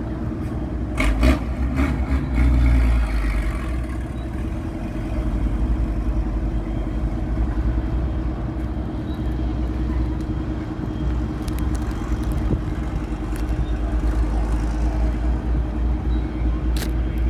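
Steady low engine rumble with a constant hum, and a short run of clattering knocks about a second in.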